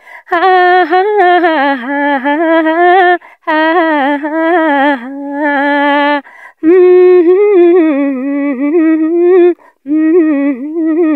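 A woman singing a Nepali song solo and unaccompanied, in four long phrases of held, wavering notes with brief breaths between them.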